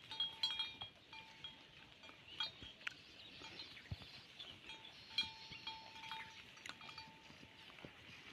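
Goats grazing: scattered sharp clicks and knocks, with a faint tone that comes and goes and light ringing higher up.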